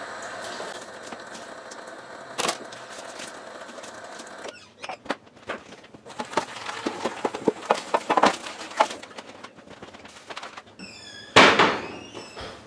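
Tap water running at the kitchen sink while a plastic cutting board is rinsed, stopping abruptly about four and a half seconds in. Then dishes and a metal pan knocking and clattering in the sink in quick irregular clicks, with one louder clatter near the end.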